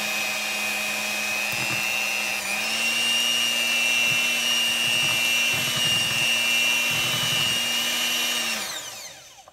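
Electric hand mixer running steadily as it beats butter into banana bread batter, a motor hum with a high whine. About two and a half seconds in it steps up to a slightly higher speed, and near the end it is switched off, the whine falling as the beaters spin down.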